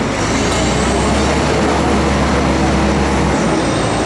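A heavy vehicle's engine running with a steady low drone among street noise. The drone changes about three and a half seconds in.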